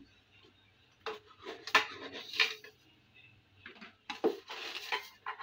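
Kitchen utensils and containers clinking and clattering in two short spells, one about a second in and one about four seconds in.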